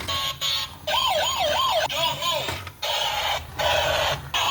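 Toy police car's electronic siren sound effect through a small speaker: a fast warbling wail about a second in, over a buzzy electronic sound that cuts in and out at short regular intervals.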